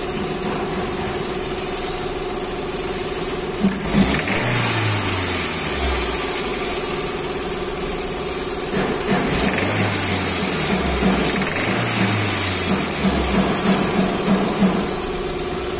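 Car engine idling steadily. It is an engine with a blown head gasket, pushing gas bubbles into the coolant. A low tone drops in pitch three times, from about four seconds in.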